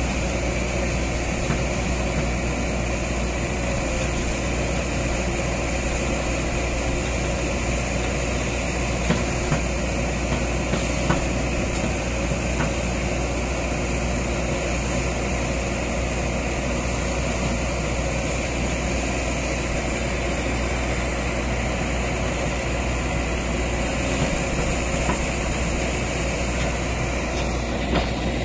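Diesel engine of a Kobelco SK200 excavator running steadily while its bucket pushes against a coconut palm, with a few faint knocks about ten seconds in.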